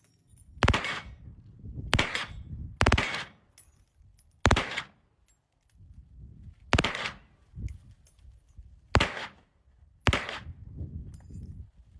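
Gunshots fired one at a time, about seven in all, spaced unevenly about one to two seconds apart. Each crack has a short ringing tail.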